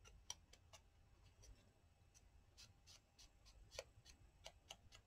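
Faint, light tapping, a few taps a second, stopping for about a second and a half partway through: a green ink pad being dabbed onto paper.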